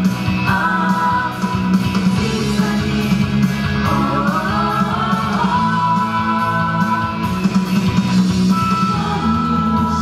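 A mixed vocal ensemble of young men and women singing together through microphones over an amplified instrumental backing, with long held notes.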